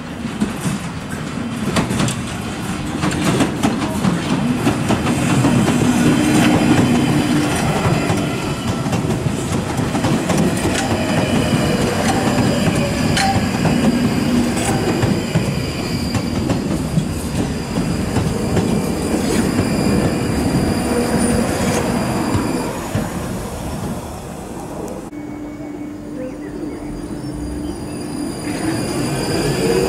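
London Underground 1995 Stock Northern line train running in over pointwork: wheels clicking over rail joints and crossings, with a high wheel squeal and a low motor hum. The sound eases about three-quarters through, and near the end a rising whine comes in as a train starts to pull away.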